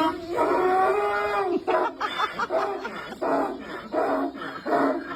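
A man imitating a dog with his voice: one drawn-out howling whine, then a run of about six short yelping barks.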